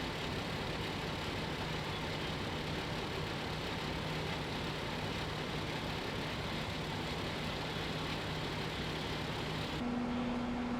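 An engine idling steadily, a low even hum over a hiss, which cuts off suddenly near the end.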